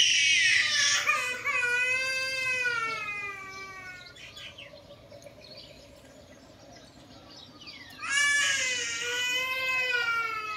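Baby macaque giving two long, wavering high-pitched cries, the first dying away about four seconds in and the second starting about eight seconds in.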